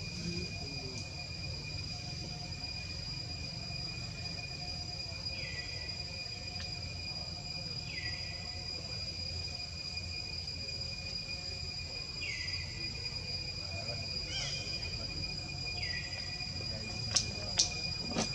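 Steady jungle insect drone, two high continuous tones, with a short call that drops in pitch repeating every three to four seconds. Near the end come three sharp clicks, the loudest sounds.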